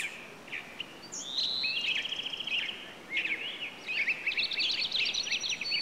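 Small songbirds chirping and trilling over a faint hiss: a rapid trill about two seconds in, and denser, overlapping chirps through the second half.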